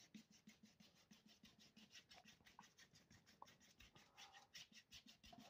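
Near silence: the faint scratch of a paintbrush working oil paint across canvas.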